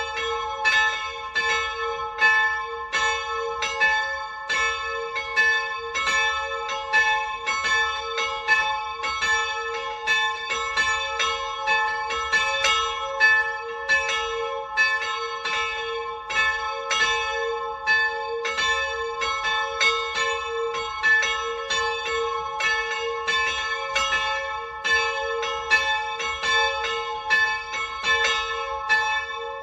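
Two small bronze church bells, cast in Salzburg in 1693 and 1779 and tuned to a'' and c-sharp''', ringing together as a full peal. Their strokes fall in a steady, overlapping run of several a second over a sustained ringing hum.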